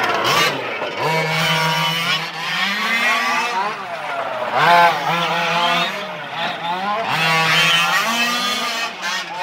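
Several 1:5-scale RC cars' small two-stroke petrol engines revving, their pitch rising and falling as they accelerate and ease off around the track, several engines overlapping.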